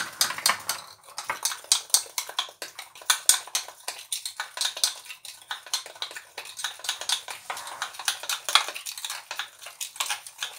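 Metal spoon stirring milk powder and milk into a thick paste in a small glass bowl, clinking and scraping against the glass in rapid, irregular clicks.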